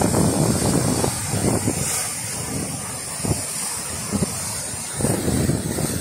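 Choppy sea surf breaking and washing around shoreline boulders, with wind rumbling on the microphone in gusts. It eases for a few seconds in the middle and picks up again about five seconds in.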